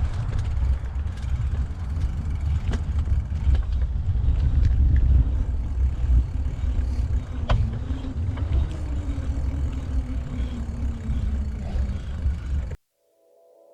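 Wind rumbling on the camera microphone while a mountain bike is ridden, with scattered clicks and rattles from the bike. It cuts off abruptly near the end.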